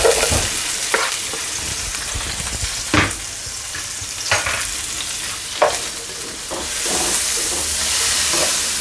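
Bell peppers and onions sizzling in hot butter and olive oil in a skillet, with a few sharp clicks of a utensil stirring them against the pan. The sizzle grows louder about seven seconds in.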